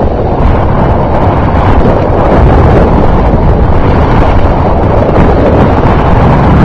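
Loud, steady wind buffeting the microphone as the skier moves downhill, a dense low rumble.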